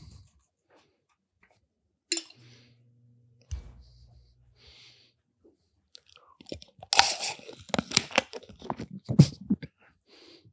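A person drinking from a can held close to the microphone: a run of loud, irregular gulps and swallowing mouth sounds lasting about two and a half seconds in the second half. Before it there are a few quieter clicks and a thump from handling.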